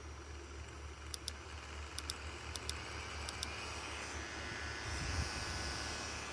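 Buttons on a small portable neck fan clicked four times, each press a quick double click, over a steady low hum. About four seconds in, a higher airy hiss rises and a brief low rumble follows.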